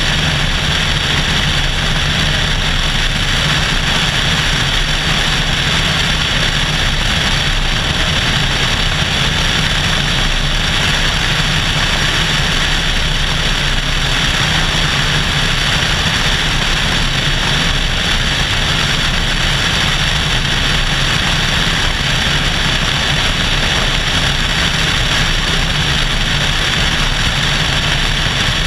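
Cessna 172SP's four-cylinder Lycoming IO-360 engine and propeller running steadily in flight, heard through heavy rushing wind on a camera mounted outside the airframe.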